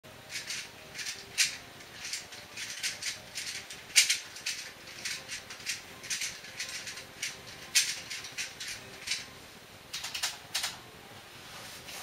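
Plastic Rubik's Cube being turned with bare feet: an irregular run of clicking, clacking layer turns, with a few sharper clacks about one and a half, four and eight seconds in. The clicking dies away about a second before the end.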